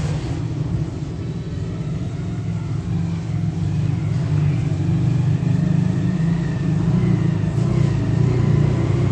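A steady low rumble, with the soft scraping of a silicone spatula stirring besan paste roasting in ghee in a nonstick pan.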